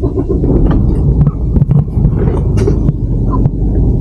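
Mercedes-Benz truck's diesel engine rumbling, heard inside the cab as the truck gets under way, with a low throbbing and scattered knocks and rattles.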